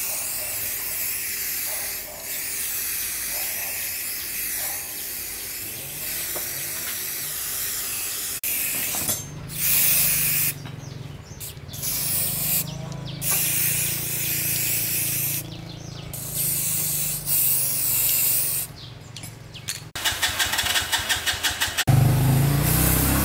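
A steady hiss, then hissing spray coming in short on-off bursts over a steady low machine hum. Near the end comes a fast rhythmic pulsing, then a louder low rumble.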